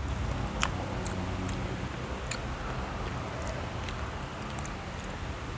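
A child eating ripe Harumanis mango, biting and scraping the flesh off the skin: a few soft, wet mouth clicks over a steady low hum.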